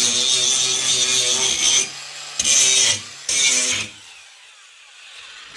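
Angle grinder grinding a steel edge to prepare it for welding: a steady motor hum with a loud hiss of the disc on the metal. The disc leaves the work about two seconds in, bites twice more briefly, and comes off the metal about four seconds in, leaving the grinder much quieter.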